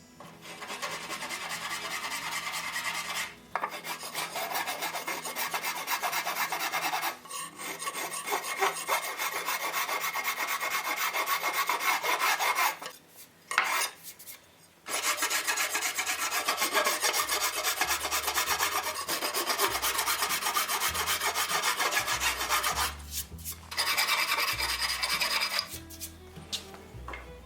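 Hand rasp filing wood, in long runs of quick back-and-forth strokes broken by a few short pauses, as the joints of a wooden buggy frame are trimmed to fit.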